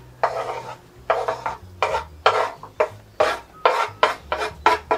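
Wooden spatula scraping chopped vegetables off a wooden cutting board into a bowl: about a dozen short scrapes, coming faster near the end.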